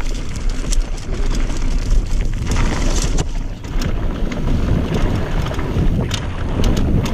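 Mountain bike descending a dirt trail: wind buffeting the head-mounted microphone with a steady low rumble, over which the bike clatters with many short sharp clicks and knocks.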